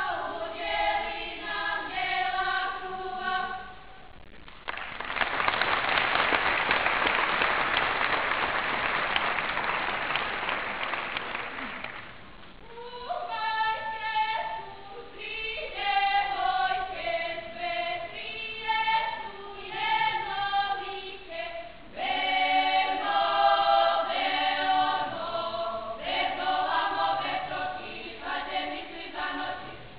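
A choir singing. About four seconds in the singing stops and a loud, even noise fills about seven seconds, then the choir starts singing again.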